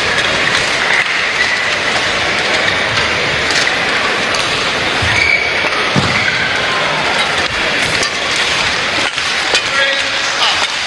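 Badminton arena crowd: a steady din of cheering and chatter from the stands, with a few sharp knocks scattered through it.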